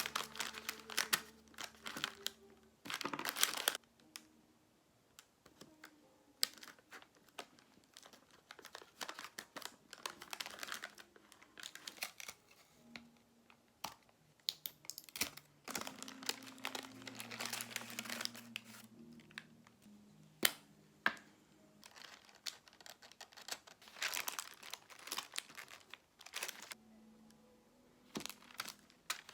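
Wrapping material crinkling and tearing as it is handled, in irregular bursts of crackle, typical of hand-packaging small items.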